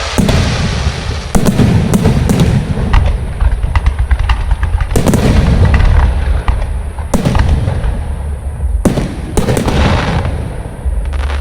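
Fireworks display: about ten loud bangs of shells bursting at uneven intervals, each trailing off in a fading spread of noise.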